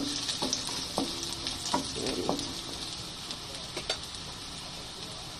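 Garlic cloves sizzling in hot oil in a non-stick wok, with a spatula scraping and knocking against the pan a few times in the first four seconds, then just the sizzle.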